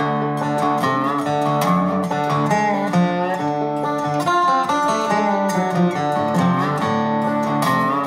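Background music led by plucked acoustic guitar, starting suddenly at the cut.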